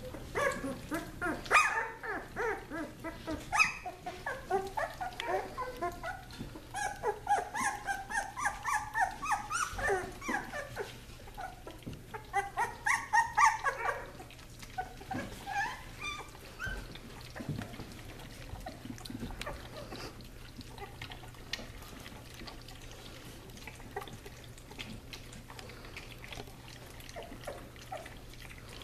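Young puppies whimpering and squeaking in quick runs of short, high cries for the first half, among wet lapping as they drink milk from a shallow dish. From about halfway on the cries stop and only faint lapping goes on.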